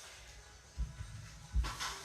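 Two dull thumps, one just under a second in and one near the end, the second followed by a brief scraping rustle, as a luxury vinyl floor plank is handled and set down on the floor.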